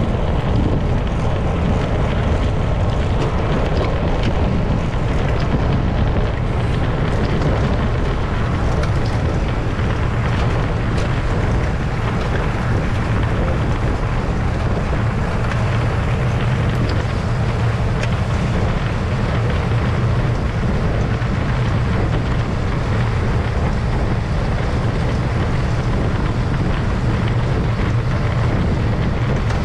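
Wind buffeting the microphone of a camera carried on a moving road bicycle: a steady low rumble with an even hiss over it.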